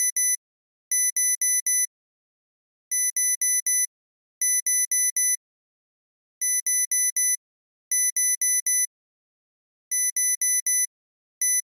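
Electronic alarm beeping in quick bursts of four short, high beeps, each burst separated by a brief silence and repeating every one and a half to two seconds.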